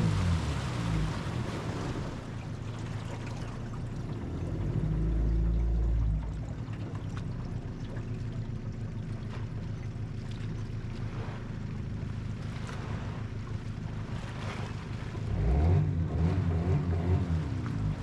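Boat's outboard motor running, its pitch dropping in the first seconds and rising again near the end, over a wash of water and wind noise.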